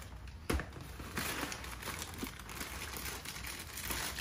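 A Strawberry Krispies cereal box being opened: a sharp click about half a second in as the cardboard top comes free, then the plastic liner bag crinkling as it is pulled open.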